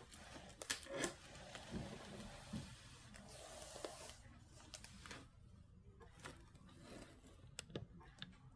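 Faint handling noise of a diamond painting canvas and its clear plastic cover being moved along, rustling with a few sharp clicks; it quiets after about four seconds, leaving only occasional clicks.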